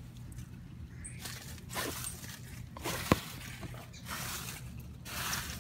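Dry leaves rustling and crunching in several short bursts as someone moves through them in a leaf-filled window well, with one sharp click a little past halfway.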